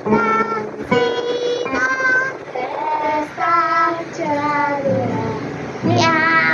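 A young girl singing a simple melody, holding each note briefly before stepping to the next.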